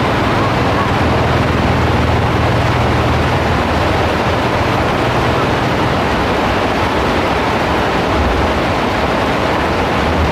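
Heavy rain pouring steadily as a dense, even hiss, with a low rumble underneath that is strongest in the first half.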